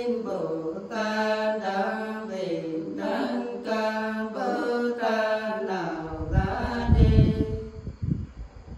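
A woman's voice singing unaccompanied in the Nùng folk style, in long held notes that slide between pitches. From about six seconds in, a loud low rumble with knocks comes over the singing.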